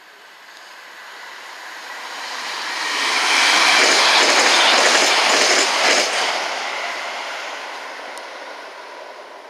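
Class 321 electric multiple unit passing through at speed on the adjacent track: wheel and rail noise builds over a few seconds, is loudest for about two seconds with a few clicks of wheels over rail joints, then fades away.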